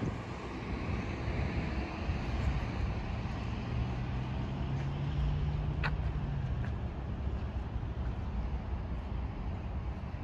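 Road traffic: a steady rumble of passing cars and buses, with a low engine hum swelling in the middle. A single short sharp click comes about six seconds in.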